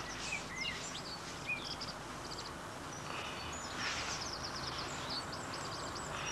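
Small songbirds chirping and trilling in short, high-pitched phrases over a steady background hiss.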